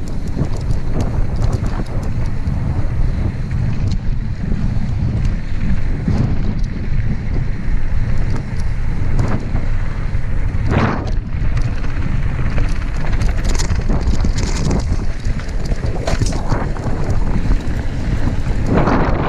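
Wind buffeting the microphone during a mountain bike ride, a loud, steady low rumble, with a few short knocks about halfway through and near the end.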